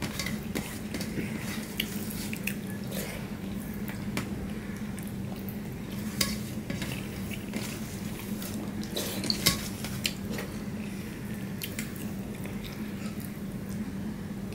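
Fingers mixing rice and curry on a stainless steel plate: scattered clicks and scrapes of hand and food against the metal, the loudest about six seconds and nine seconds in, over a steady low hum.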